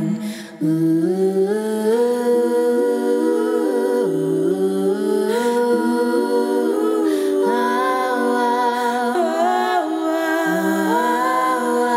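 Four female voices singing wordless a cappella harmony, humming held notes that step in pitch together, with a brief breath pause about half a second in.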